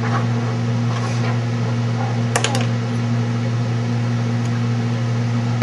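A steady low hum from a machine, with a couple of faint clicks about two and a half seconds in.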